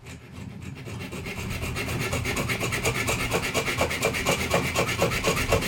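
Magic Saw hand saw cutting through a thick steel chain link held in a vise: quick back-and-forth strokes of the blade on the metal, several a second, building up over the first couple of seconds and then going steadily.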